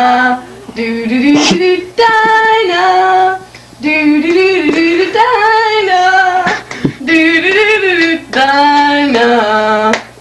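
A woman singing without accompaniment in short phrases of long held notes, over a steady low hum.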